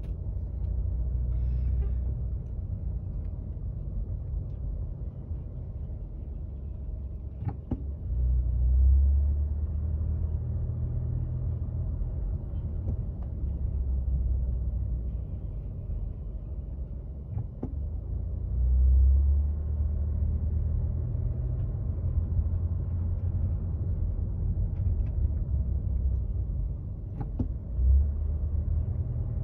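Low, steady rumble of a car's engine and tyres heard from inside the cabin while driving slowly, swelling now and then, with a few faint ticks.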